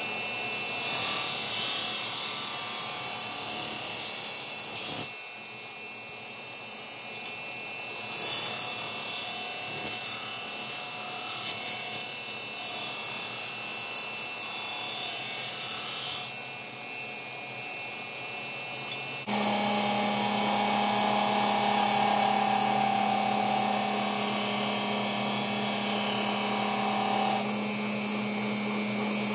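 Belt grinder running with a steady whine while a steel knife blade is held against the belt to grind its bevels. In two long stretches the grinding hiss rises high and loud, easing off between them. About two-thirds of the way through, the sound switches to another belt grinder running with a steadier, lower hum.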